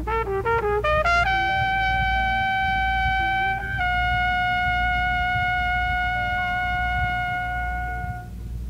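Trumpet solo in a ballad: a quick run of short rising notes, then one long held note that steps slightly lower about four seconds in and is held again until near the end. Faint accompaniment sits underneath, with the low hum of an audience recording of a live concert.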